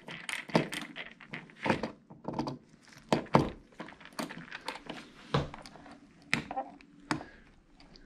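Ratcheting screwdriver turning a light switch's mounting screw into the electrical box: scattered clicks and light knocks at an uneven pace.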